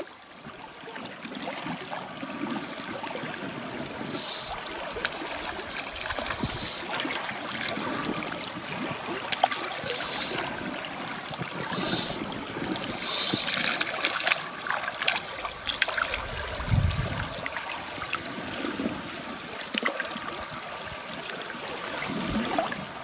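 Shallow river running over stones, a steady rushing, with five short hissing swishes between about 4 and 14 seconds in from a fly line being cast. A low dull thump comes about 17 seconds in.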